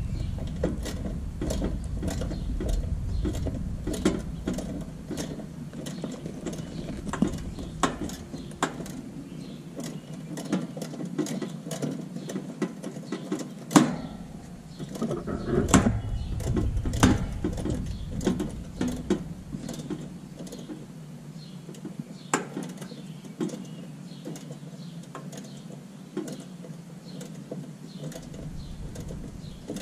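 Irregular metallic clicks and scrapes of a hand tool turning the stem of an air conditioner condenser's service valve, opening it to let refrigerant into the line set.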